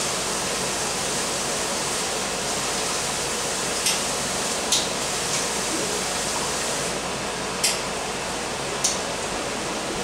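Beef sizzling steadily in a hot skillet, with four sharp knife taps on a cutting board spaced irregularly through the middle and latter part.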